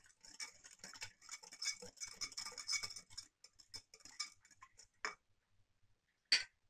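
Wire whisk stirring a thin mixture of water, yeast and sugar in a bowl, its wires ticking rapidly against the bowl's sides. The stirring stops about four and a half seconds in; a single sharp clink follows near the end.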